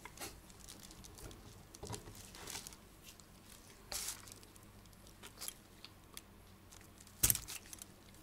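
Brass clock movement parts handled in gloved hands: scattered light clicks and taps of the brass plate and main wheel, the loudest a sharp knock about seven seconds in.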